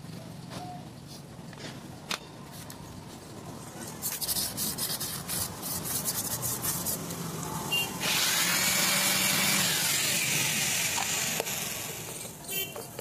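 Metal clicks and knocks as a motorcycle drum-brake plate with new shoes is worked into the wheel hub, growing into quick clattering about four seconds in, then a steady rasping rub lasting about four seconds.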